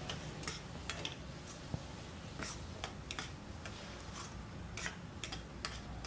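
A metal ladle scrapes and taps against a kadhai as a thick onion-garlic masala with chopped tomatoes is stirred and fried. The sound is faint, with irregular clicks.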